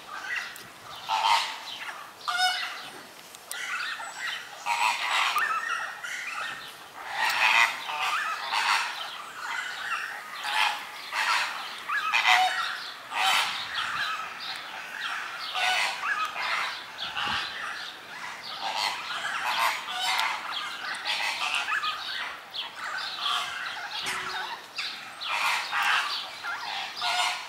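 A greater flamingo colony calling: many short overlapping honking calls, one after another with hardly a break.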